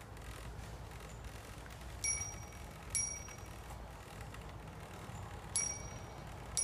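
Bicycle bell rung with four single dings in two pairs, each pair about a second apart. A steady low background noise runs underneath.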